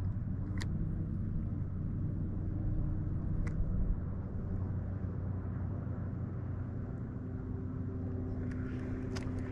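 A steady low rumble with a faint hum running through it, and two small clicks in the first few seconds.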